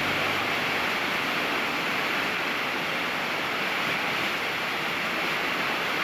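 Large waterfall: a steady, unbroken rush of falling water crashing down.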